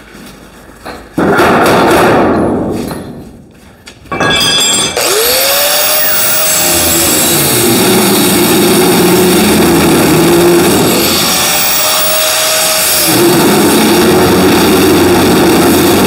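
Angle grinder grinding steel sheet metal. After a short burst about a second in, it starts again about four seconds in and winds up to a free-running whine that drops in pitch as the disc bears into the metal. It lifts off and winds back up near the eleventh second, then bogs down into the metal again.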